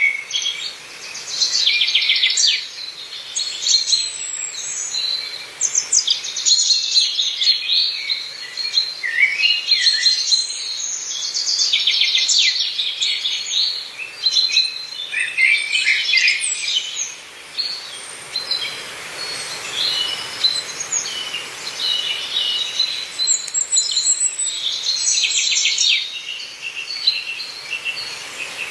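Several songbirds singing and calling at once, a dense chorus of overlapping chirps and rapid trills that thins to sparser calls for a few seconds past the middle before filling in again.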